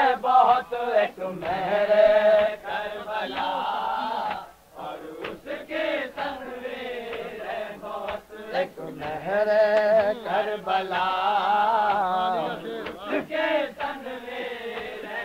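Male reciters chanting an Urdu salam, a devotional elegy for the martyrs of Karbala, in a slow melody with long, wavering held notes.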